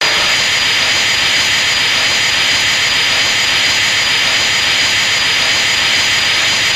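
Dragon Ball Z energy-beam sound effect: a steady, loud hissing rush with a thin high whine through it, cutting in abruptly.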